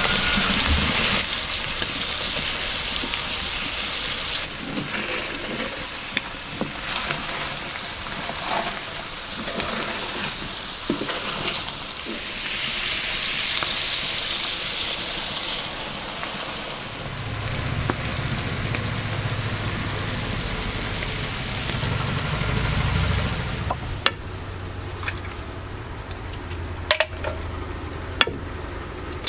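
Food frying and sizzling in a pan over a campfire, with stirring and scattered small clicks. The sizzle brightens for a few seconds when cream is poured in, and near the end sharp taps come as eggs are cracked against the pan.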